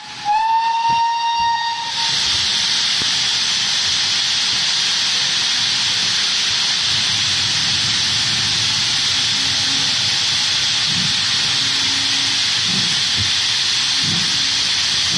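GWR Manor class steam locomotive's whistle sounds once, for about two seconds. It then gives way to a loud, steady hiss of steam as the double-headed train pulls away from the platform.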